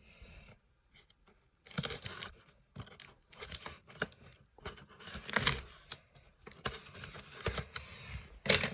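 Cardboard box being cut and torn open: irregular bursts of tape and cardboard tearing and scraping.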